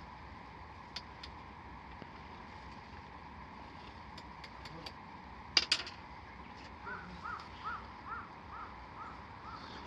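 Campfire wood crackling with scattered sharp pops, the loudest snap about halfway through. Near the end a bird calls a quick series of about eight short notes, roughly three a second.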